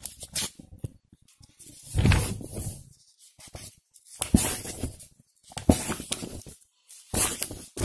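Pages of a paperback textbook turned by hand, a papery rustle with each turn, several times.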